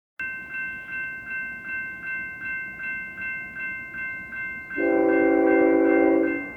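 Railroad crossing bell ringing in steady, even strokes, about two and a half a second. About five seconds in, a locomotive air horn sounds one steady blast of about a second and a half, louder than the bell, which keeps ringing under it.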